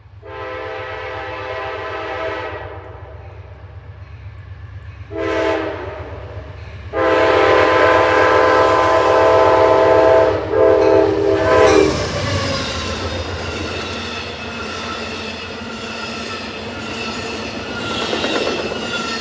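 Air horn of an Amtrak P42DC Genesis diesel locomotive sounding three blasts: a long one, a short one about five seconds in, and a longer, louder one from about seven seconds in that breaks up near its end. Then the locomotive and cars pass close by slowly, a steady rumble and wheel clatter with thin high wheel tones over it.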